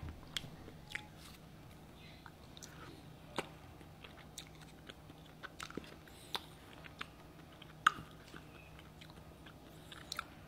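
Faint chewing of a mouthful of natto, fermented soybeans, with scattered short soft clicks of the mouth.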